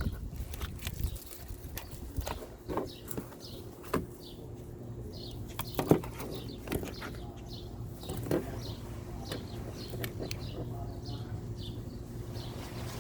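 Irregular knocks and clicks of small objects being handled, the loudest about six seconds in, over a steady low hum. From about four seconds in there is a run of short, high bird chirps repeating about twice a second.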